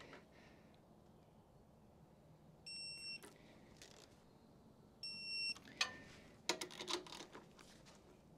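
An electronic torque wrench gives two short beeps, each about half a second, a couple of seconds apart. Each beep signals that the set torque of 90 Nm has been reached on a rear shock mounting bolt. These are followed by a quick run of sharp metal clicks and clinks from the wrench and tools.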